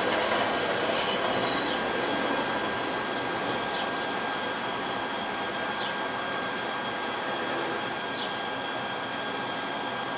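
Subway train noise slowly dying away, with a steady high whine and a short falling squeak about every two seconds, fading into a steady hum.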